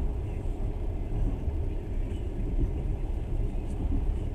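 Passenger train running, heard from inside the carriage as a steady low rumble.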